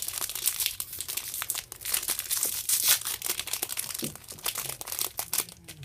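Foil wrapper of a baseball card pack being torn open and crinkled by hand, a run of irregular crackling and tearing.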